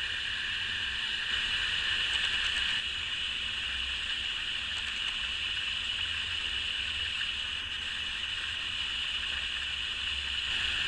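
Steady background hiss with a faint low hum and no distinct events; it eases slightly about three seconds in.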